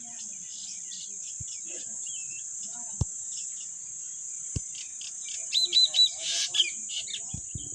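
Small birds chirping and calling, with a loud run of three quick arched whistles a little past halfway, over a steady high hiss.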